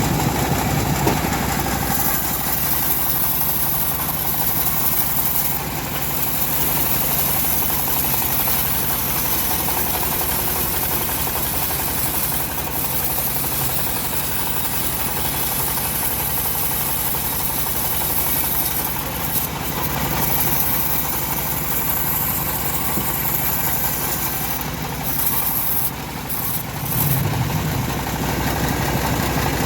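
Homemade engine-driven bandsaw mill running steadily, its blade sawing through a lamtoro log.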